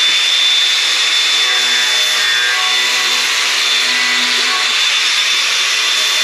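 Cordless angle grinder running at full speed with a steady high whine, its disc cutting through the cardboard of a box.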